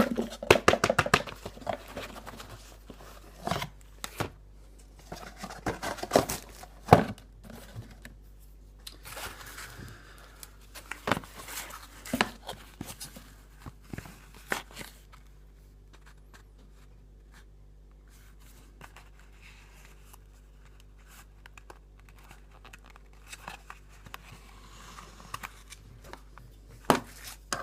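Packaging of a pack of small cigars being torn open and crinkled by hand, with sharp crackles and snaps coming in bursts, busiest in the first half.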